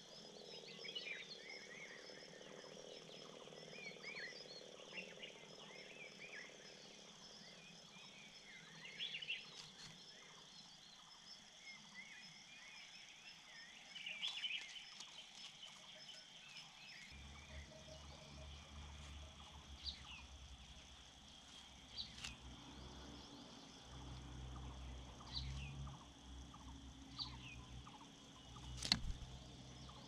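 Faint outdoor ambience: many short chirps of small birds over a steady high-pitched drone. About seventeen seconds in a low rumble joins, and a sharp click comes near the end.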